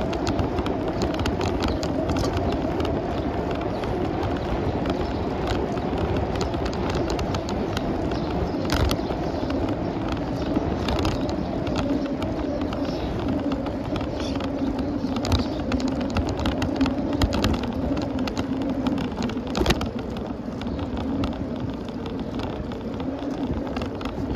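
Bicycle riding on a paved road: a steady tyre and road hum over a low rumble, with a few sharp clicks or rattles now and then.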